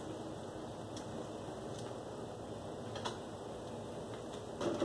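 Light, scattered clicks and taps from someone handling a sofa and shifting on a tile floor, with a few sharper ticks near the end, over a steady background hiss.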